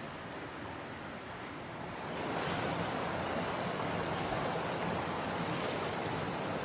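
River water rushing over rocks in a shallow riffle, a steady rush that grows louder about two seconds in.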